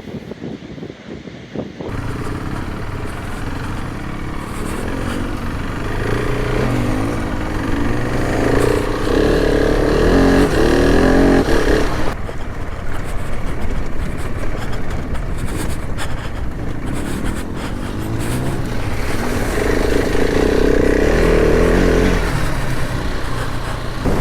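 Motorcycle engine running under way, its revs rising and falling as it accelerates and eases off. It comes in about two seconds in, after a quieter stretch of wind noise.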